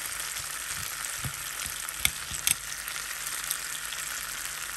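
T-bone steaks glazed with barbecue sauce sizzling in an oiled ridged grill pan: a steady frying hiss with a few sharp pops scattered through it.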